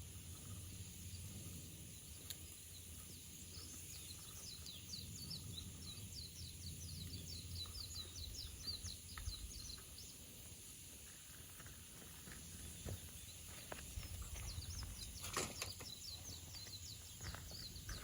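A bird singing a fast trill of short high notes, twice: one run lasting about six seconds, then another near the end. Scattered sharp snaps of a crackling wood campfire, over a low steady rumble.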